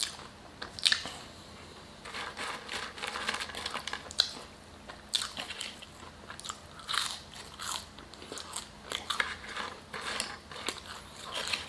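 A person biting and chewing crunchy fast food, with repeated sharp crunches in quick clusters.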